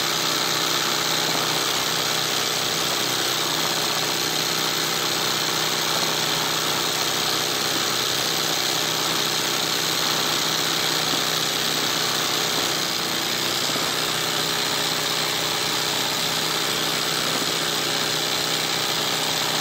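Embroidery sewing machine running steadily at speed, its needle stitching fast through cloth held in a hoop.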